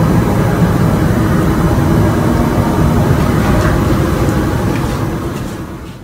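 A loud, steady low rumble of the kind reported as a strange sound from the sky, fading out over the last second or so.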